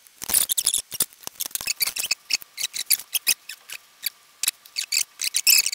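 Irregular clicks, taps and rustles of hands handling a clear plastic orb shell, a circuit board and wires on a workbench. A faint steady high tone runs under it for a couple of seconds midway.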